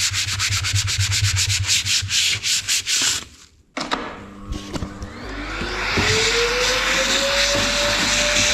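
Fast, rhythmic hand scrubbing, about nine strokes a second, of a rag rubbing the boot trim clean. It stops abruptly a little over three seconds in. About a second later an electric motor starts, its whine rising and then holding steady over a rushing hiss.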